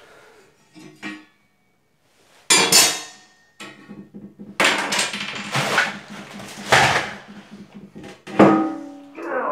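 Knocks and rattling from handling plastic toilet-tank parts and the toilet seat. There is a sharp knock about two and a half seconds in and a run of clatter over the second half, after a short near-silent gap early on.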